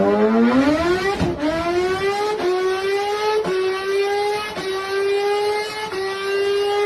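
Toy motorbike's engine sound, rising in pitch over the first two seconds like revving, then holding a steady high note with brief dips about once a second.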